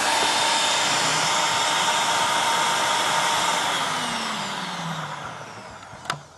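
Electric food processor running at speed, puréeing boiled chickpeas and eggs into a smooth batter. It is switched off about four seconds in, and its motor whine falls as it spins down. A single sharp click comes near the end.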